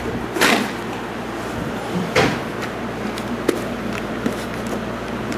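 Two dull knocks about two seconds apart, then a few light clicks, as objects are handled and set down against a hard surface, over a steady low hum.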